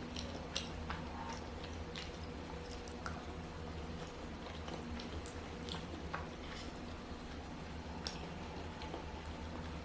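A person chewing food close to the microphone, with scattered soft wet mouth clicks and smacks over a steady low hum.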